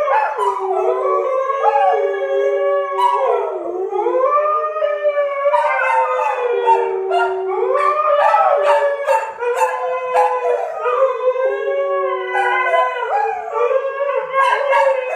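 A Siberian husky and English springer spaniels howling together: several long, overlapping howls sliding up and down in pitch.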